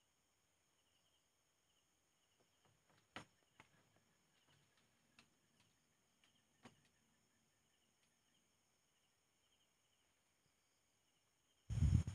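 Night insects chirping steadily in a faint pulsing drone, with a few scattered sharp clicks and crackles. Near the end there is a brief loud low rumble.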